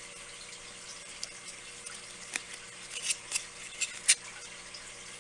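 Hands handling a silicone mold and a ring of foam core board, pressing them together: several short scratchy clicks and scrapes in the second half, the loudest about four seconds in, over a faint steady hum.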